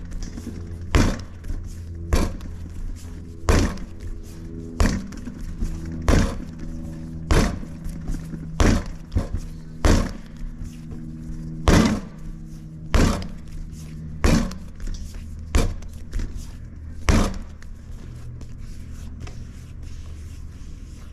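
Pizza dough being slapped down by hand, a sharp slap about every second and a quarter, about a dozen in all, stopping a few seconds before the end. A steady low hum runs underneath.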